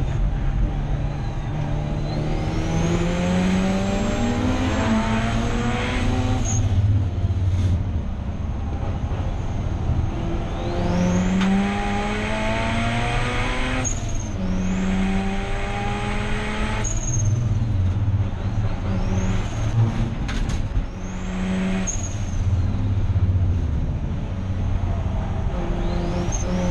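Racing Mazda RX-8's turbocharged 13B rotary engine accelerating hard through the gears: revs climb, drop back at each upshift and climb again, with a high whine rising alongside every pull. A long pull opens the stretch, then two more pulls follow a short lift, and several shorter bursts come later.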